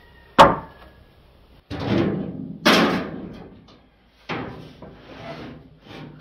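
Wooden boards being handled: a sharp wooden knock about half a second in, then several bursts of wood scraping and rubbing.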